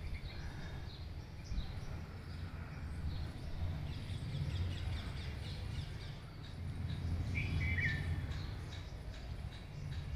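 Birds chirping and calling, many short high chirps, with one clearer call about seven and a half seconds in. A low steady rumble sits underneath.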